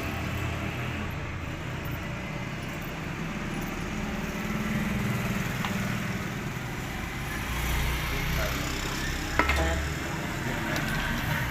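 A low, steady motor-like rumble that swells now and then, with a single sharp click about nine seconds in.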